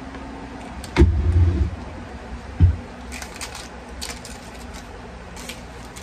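Handling noises: a low thump about a second in, another shorter one a little later, then a run of light crinkling and clicking.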